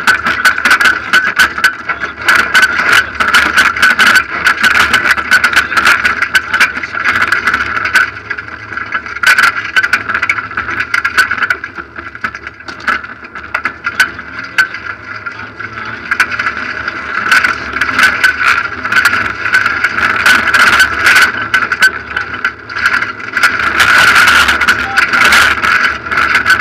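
Rally car at speed on a loose gravel stage, heard from inside the cabin: its engine running hard under load, with a constant clatter of gravel and stones striking the underside and wheel arches.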